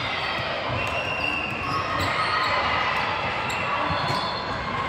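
Game noise on an indoor court: a ball bouncing and short squeaks, with the steady echo of a large hall.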